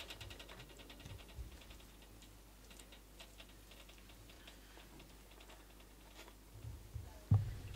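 Faint light ticking and tapping as a brush dabs sticky glaze onto salmon fillets on a smoker's wire rack: a quick run of ticks in the first second, then scattered ticks, and one low thump near the end.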